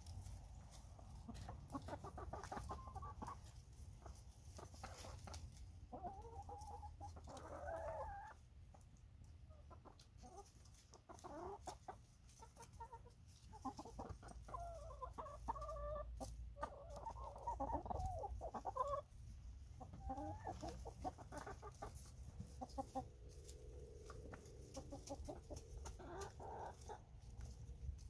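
Backyard hens clucking and giving short murmuring calls while they peck at grapes, with many small tapping pecks throughout.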